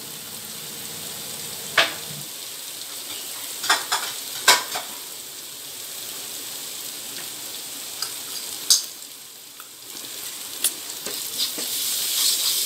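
Onion-tomato masala frying in a pan with a steady sizzle, and a few sharp taps of a wooden spatula on the pan. Near the end, the spatula stirs and scrapes the masala and the sound grows louder.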